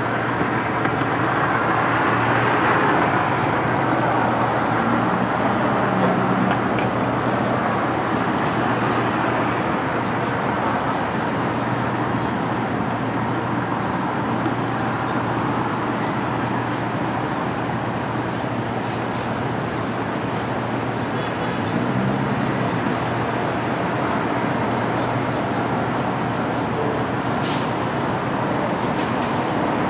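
Steady vehicle noise: a continuous rumble with a low engine hum underneath, holding level throughout.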